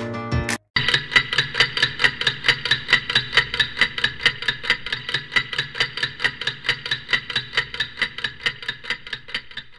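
Rapid, even mechanical ticking at about five ticks a second, the film-projector clatter effect that goes with a film-leader countdown. It starts just under a second in and fades near the end.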